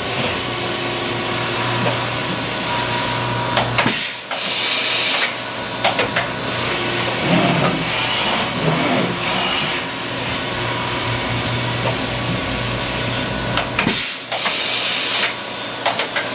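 Industrial machinery running: a steady hum under a loud hiss, with a few clicks and knocks, and the hiss briefly dropping away twice.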